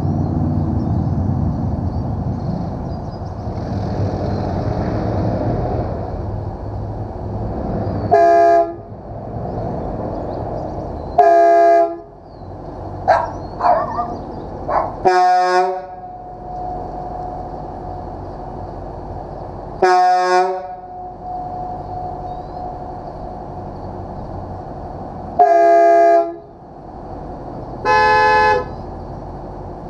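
MCI MC8 coach's air horns sounded in about six short, loud blasts of half a second to a second each, with a quick run of short rising toots in between, over a steady low rumble. The blast near the end has a different pitch from the others.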